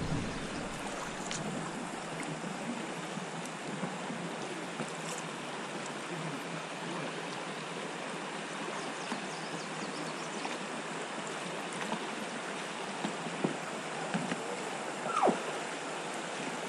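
Water of a shallow river riffle rushing steadily past an inflatable boat, with a few faint knocks near the end.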